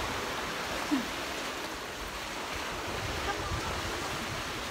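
Sea surf washing over shoreline rocks: a steady rushing noise, with low rumbles of wind on the microphone.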